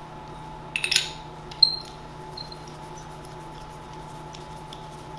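Handling noise from a Dye DSR paintball marker's parts being fitted back together: a quick cluster of rattling clicks about a second in, then a sharp metallic tap with a short ring, followed by quieter handling over a steady room hum.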